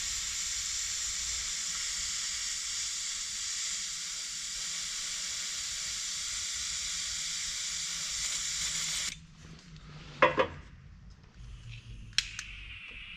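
Butane hissing steadily as a refill can is pressed onto a butane soldering torch's fill valve; the can's tip does not fit the valve well. The hiss cuts off suddenly about nine seconds in, followed by a short ringing knock and a sharp click near the end.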